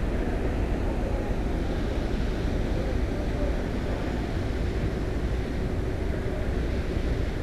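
The 2,375-ton car ferry Kuniga's diesel engines and propellers running under way, a steady low rumble with a churning wash.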